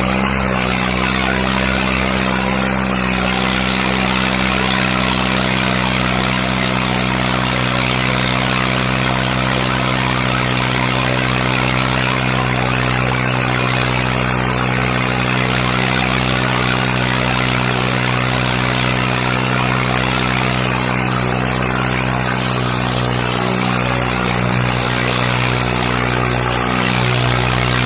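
New Holland 3630 tractor's diesel engine running loud and steady under heavy load, pulling a harrow.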